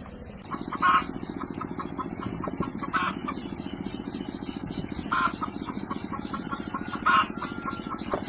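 Chickens clucking, with a short, loud call about every two seconds and quicker, softer clucks between. Underneath, a steady, fast-pulsing low drone starts about half a second in.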